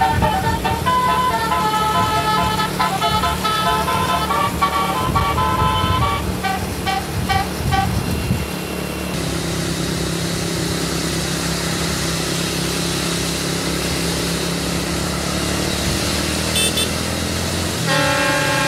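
Tour bus telolet horn playing a fast tune of stepping notes for about eight seconds, then the bus's engine and road noise running steadily, with the horn starting up again near the end.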